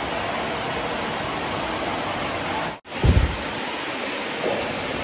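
Steady rush of running water in a bathhouse cold bath. About three seconds in, after a short break, there is a brief low thump.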